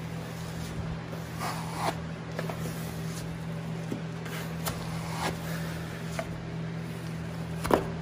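Plastic spatula smoother rubbing and scraping over cork wall covering in a few short, irregular strokes as it is pressed firmly around a rounded corner to push out air, over a steady low hum.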